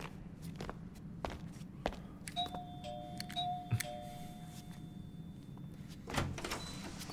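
Electronic two-tone doorbell chime, a higher note then a lower one, rung twice about a second apart and heard through an apartment door. Scattered footsteps on the landing, with a louder thud near the end.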